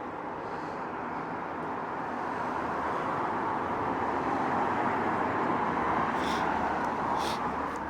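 Street traffic: a vehicle going past, its noise slowly swelling to a peak about five or six seconds in and then easing off.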